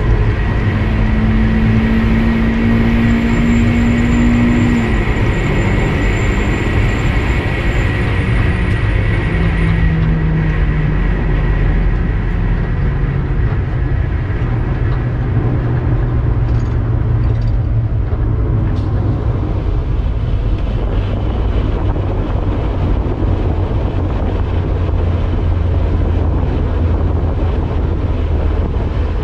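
Turbo-converted Mazda MX-5's engine running over steady road rumble. Its note climbs slightly for about five seconds, then drops, and the car runs on at lower revs.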